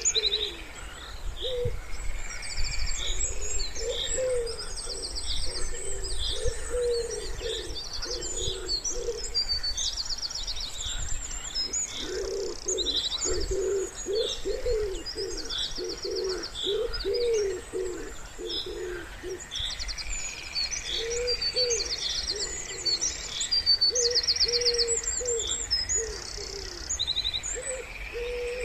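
Wood pigeon cooing in repeated phrases, with small songbirds chirping and trilling continually in higher notes over a low background rumble.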